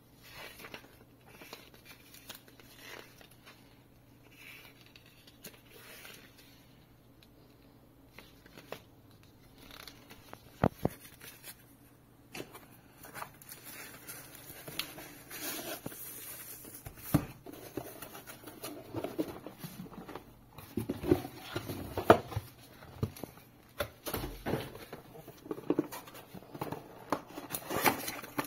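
Unboxing handling noise: paper pages of a manual leafed through, plastic wrapping crinkled and a small cardboard box opened, with scattered sharp taps and knocks. Sparse at first, busier and louder in the second half.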